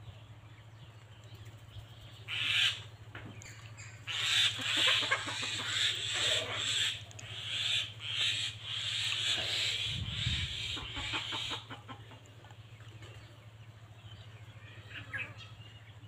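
Chickens: a short call about two and a half seconds in, then a loud, rough stretch of fowl sound from about four to twelve seconds in, over a steady low hum.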